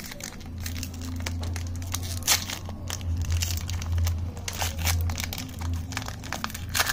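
Foil-lined chocolate wafer wrapper crinkling and tearing as fingers peel it open: irregular crackles, a sharper one about two seconds in and another near the end, over a low steady hum.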